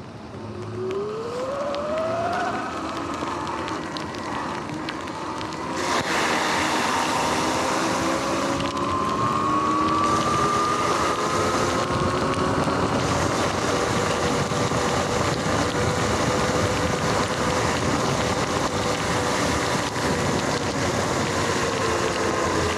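Sur-Ron X electric dirt bike riding on a wet path: the motor's whine rises in pitch about a second in as the bike speeds up, then holds with a slow drift. Under it is a steady hiss of wind and wet tyres that grows louder about six seconds in.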